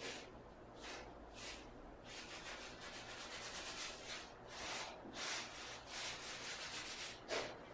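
A hand scrubbing and wiping over wood-look tile, cleaning excess setting material out of the joints, in a string of short rubbing strokes that come quicker through the middle.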